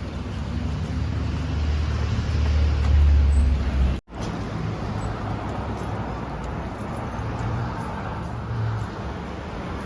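Car road noise: a steady low rumble of engine and tyres that swells to its loudest about three seconds in, then cuts out abruptly about four seconds in before steady road noise resumes.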